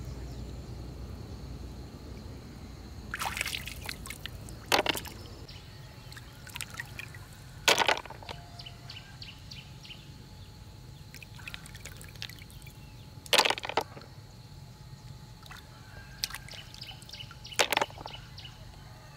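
Shallow pond water sloshing and trickling as hands rummage through it for snails, broken by five sharp knocks a few seconds apart as handfuls of snail shells are dropped into a plastic basin.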